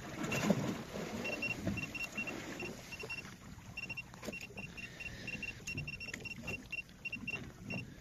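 Steady background noise on a small fishing boat at sea: water and a low rumble. Short high beeps repeat in pairs and threes throughout.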